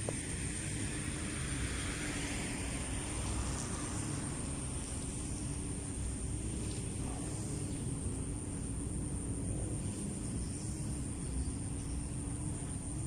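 A grass-cutting machine's engine drones steadily, its pitch wavering slightly, over a low wind rumble and a steady high hiss.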